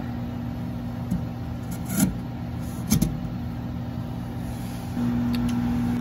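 A few light knocks as the ceramic lid of a microwave kiln is set back onto its base, the two loudest about two and three seconds in. About five seconds in, a steady low hum starts.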